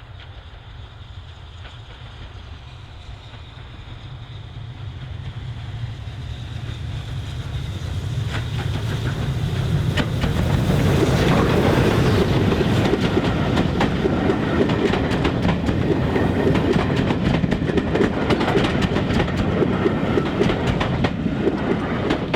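Steam train hauled by BR Standard Class 9F 2-10-0 locomotive 92134 approaching and passing. It grows louder over the first ten seconds or so, then runs as a steady loud rumble with rapid clicking of wheels over the rail joints, easing off near the end.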